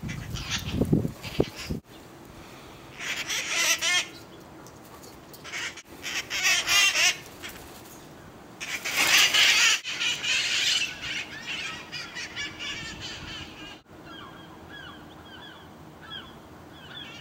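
A flock of red-masked parakeets squawking in harsh bursts of rapid, grating calls, the loudest burst about halfway through. Near the end there are fainter, shorter chirping calls.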